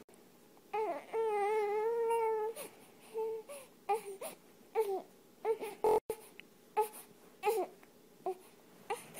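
Newborn baby crying: one long, wavering wail about a second in, then a string of short cries and whimpers.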